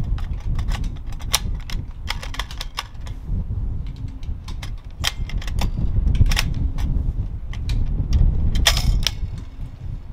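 Irregular metallic clicks and clacks of a KRG bolt-action rifle being handled, with its bolt and AICS-pattern metal magazine worked to clear a feeding problem that the shooter blames on the magazine but that lay in the chassis's magazine adjustment. Wind rumbles on the microphone underneath.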